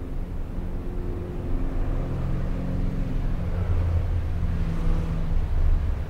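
Urban road traffic: a low vehicle engine rumble whose pitch shifts and which grows a little louder in the second half, as a car passes on the street.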